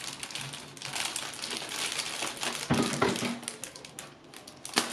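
Thin plastic packaging crinkling as it is handled, with a couple of sharper, louder crackles about three seconds in and near the end.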